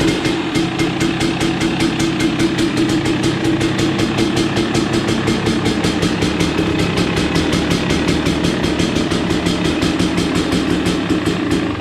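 300 cc two-stroke dirt bike engine idling steadily with an even, rapid firing beat.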